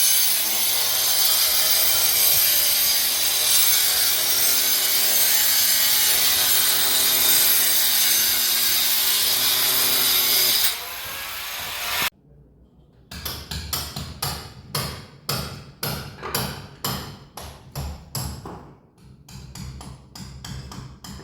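Demolition work: a power tool runs steadily at one pitch for about ten seconds and stops abruptly. After a short pause, a hand tool works in regular strokes, about two a second.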